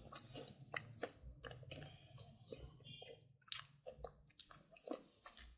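Slate pencil being chewed: irregular crisp crunches and clicks, with a brief pause a little past the middle.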